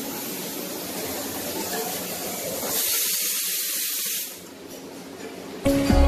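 A steady hiss, louder for about a second and a half in the middle. Music comes in near the end.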